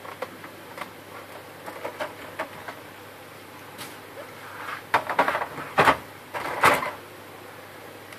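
Plastic clatter and knocks from the paper tray of an opened-up HP LaserJet 1300 laser printer being handled and set in place: a few light clicks first, then a cluster of louder knocks about five to seven seconds in.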